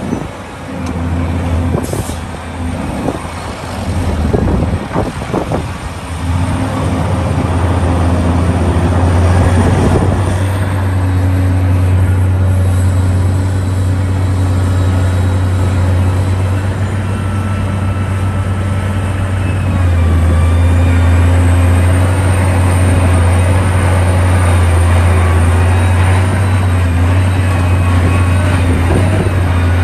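Heavy excavator at work: its engine runs with a steady deep drone, with clanks and knocks through the first six seconds or so.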